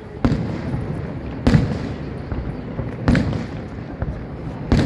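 Fireworks shells bursting: four sharp booms about a second and a half apart, each trailing off in a rumbling echo.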